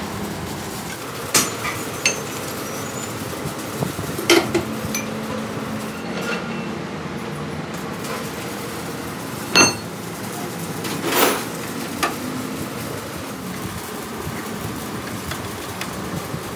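Scattered sharp metal clanks and clinks, about six in all and several seconds apart, from tools and parts being handled in truck axle repair work, over a steady background hum. The loudest clank comes about nine and a half seconds in.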